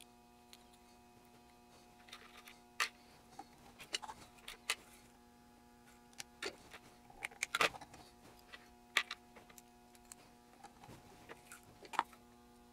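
Irregular small clicks and taps from hands handling a small circuit board and pushing component leads through it, with a board-in-vise clack near the end, over a faint steady electrical hum.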